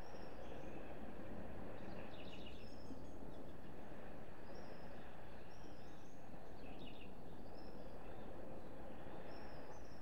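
Small birds chirping at dawn: short high chirps repeated every second or so, with a quick trill about two seconds in and another about seven seconds in, over a steady low background hiss.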